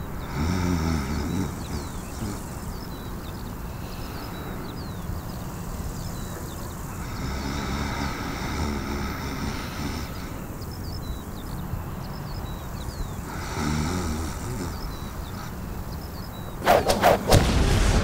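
A person snoring, three long rough snores several seconds apart, with faint high chirps in the background. A few sharp loud knocks come near the end.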